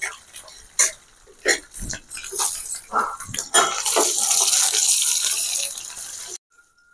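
Sliced onions and dried red chillies frying in hot oil in a steel pan for a tempering, with a metal spatula clinking and scraping as they are stirred. About three and a half seconds in, the sizzle swells to a steady loud hiss, then cuts off suddenly near the end.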